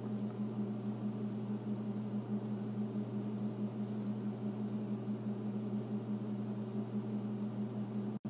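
Steady low electrical hum with a faint hiss: the background tone of the recording, with no other sound. It drops out for an instant near the end.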